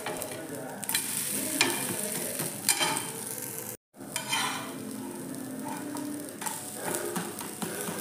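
Thalipeeth flatbread sizzling in oil on a hot tawa griddle, with a steel spatula scraping across the pan a few times. The sound cuts out abruptly for a moment near the middle.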